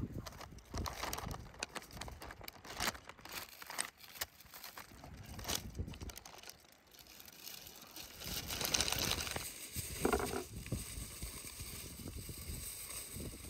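Parchment paper and aluminium foil crinkling and rustling as a large marinated fish is wrapped by hand, with scattered light clicks and a louder rustle about two thirds of the way through.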